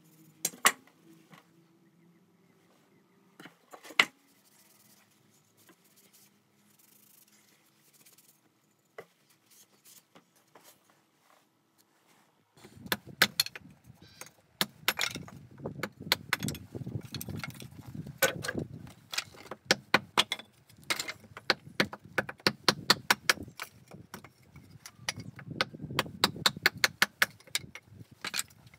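A few soft knocks in a quiet room, then about twelve seconds in a hatchet starts striking and splitting scrap softwood boards: a fast, uneven run of sharp chops and wooden clatters, several a second, over a low rumble.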